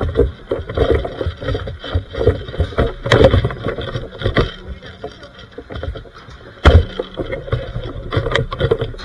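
Rumbling handling and movement noise on a wearable camera's microphone as the wearer moves, with irregular clicks and a few sharp knocks, the loudest about two-thirds of the way in.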